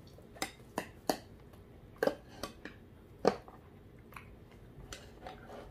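Metal spoons clinking and scraping against metal-lined children's bowls during a meal: a scatter of about ten light, irregular taps and clicks, the loudest about two seconds and three seconds in with a brief ring.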